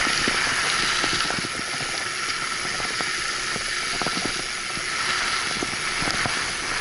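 Steady rushing hiss of a mountain bike riding fast along a concrete path, wind and tyre noise together. Scattered small rattles and knocks come from the bike over the bumps.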